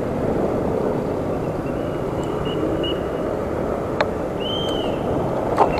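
Wind and road rumble on a camera riding an electric scooter in motion: a steady rushing noise, with a sharp click about four seconds in and another near the end, and a faint high chirp shortly after the first click.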